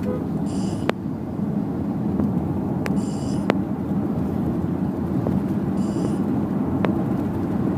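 Steady road and engine rumble inside a moving car, with a short, hissy snore from a sleeping pet about every three seconds, three times in all. A few sharp clicks come through the rumble.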